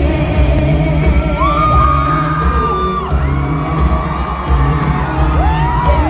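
Live country-pop band music in an arena, heard from the crowd, with a steady drum and bass beat. Two long, high whoops from audience members rise over it, one early and one near the end.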